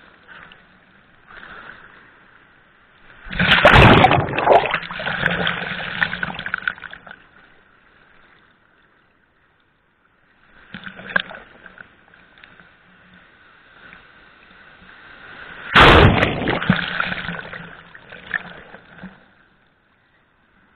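Water splashing and sloshing in two loud surges, one about three seconds in and one near the end, each starting suddenly and dying away over a few seconds, with a smaller splash between them.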